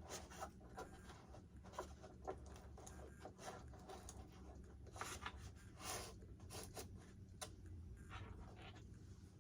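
Faint, irregular scraping and crunching of foam as a drill bit is worked through a foam model-aircraft wing and fuselage to clear a channel, with scattered small clicks and a couple of longer scrapes about five and six seconds in.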